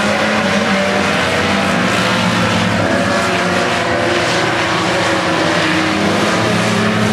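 A pack of sport compact race cars running hard together, several engines overlapping, their pitches rising and falling as they lap.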